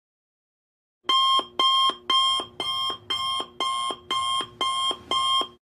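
Alarm clock beeping: nine short, even beeps at about two a second, starting about a second in.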